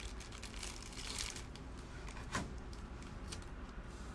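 Faint rustling and crinkling of clear plastic packaging as a figure is handled and unwrapped, with one small click about two and a half seconds in.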